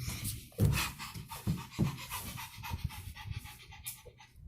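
A young child imitating a panting dog: a run of quick, repeated breathy huffs in and out.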